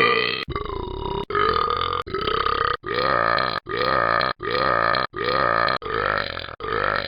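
A person burping: about nine short, loud burps cut back to back, each under a second. From about three seconds in, near-identical burps repeat roughly every three-quarters of a second.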